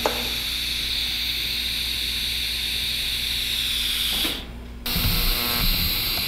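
TIG welding arc on stainless steel, welding an O2 sensor bung onto exhaust pipe, hissing steadily. A little over four seconds in, the sound cuts out for about half a second, then the hiss comes back with some low rumbling.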